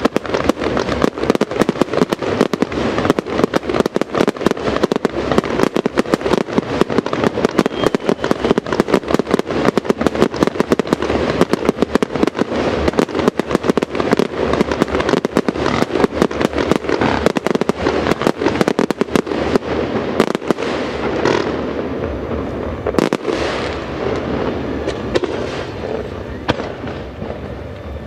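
Fireworks show: a dense, rapid string of bangs, many a second, that thins about twenty seconds in to a few separate, echoing bangs over a rumble.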